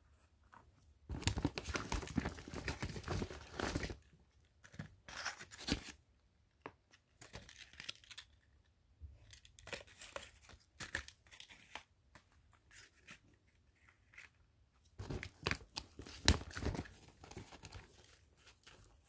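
Packaging being torn open and crinkled by hand in several separate bursts. The longest starts about a second in and lasts about three seconds, and another comes near the end.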